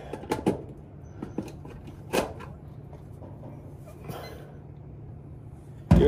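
Hard plastic clicking and scraping of a smoke detector head being twisted and locked onto its ceiling base, with a sharp click about two seconds in and a softer scrape near four seconds. A steady low hum runs underneath.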